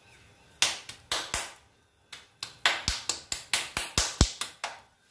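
A run of about fourteen sharp taps or knocks on a hard surface in the kitchen. They start about half a second in, pause briefly around two seconds in, then come faster at roughly four a second before stopping near the end.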